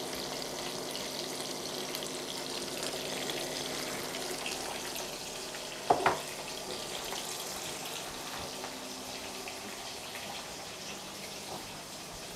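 Sunflower oil sizzling steadily around slices of zucchini frying in a pan. A short, louder sound comes once, about six seconds in.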